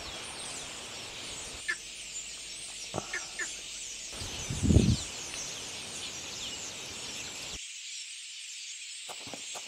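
Many small birds twittering together, a steady chorus of quick high chirps. A short, louder low sound stands out a little under halfway through.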